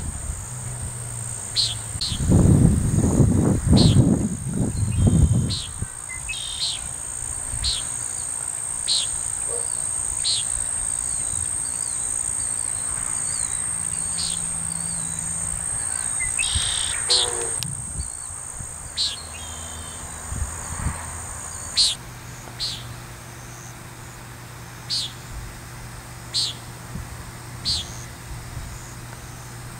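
Common nighthawk giving short, sharp nasal peent calls again and again, one every second or two, over a steady high insect drone. A loud low rumble about two to five seconds in is the loudest sound.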